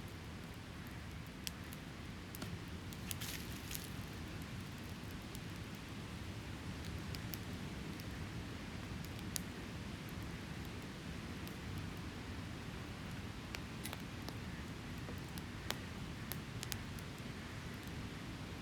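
Wood campfire crackling, with a handful of sharp pops (a quick cluster about three seconds in, and single ones later), over a steady low rush of surf on the beach.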